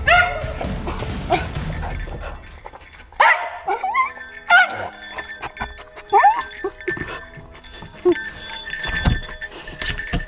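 Search-and-rescue dog barking in a series of short barks close by: the alert barking that signals it has found a person hidden under rubble. Background music runs underneath.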